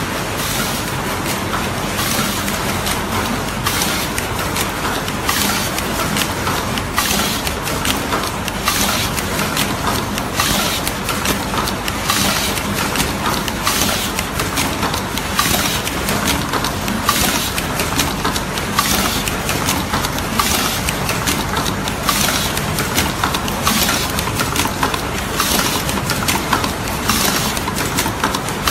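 Automatic copper foil taping, soldering and cutting machine running, a steady mechanical din with a short hissing stroke repeating about once a second as it works through its cycle.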